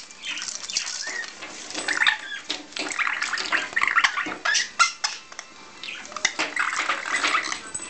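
Rainbow lorikeet chattering in short, harsh calls while it wrestles with plastic toys. The toys clatter and rattle in quick, irregular knocks throughout.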